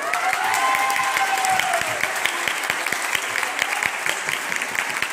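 Applause: a group of people clapping their hands, a dense run of quick claps.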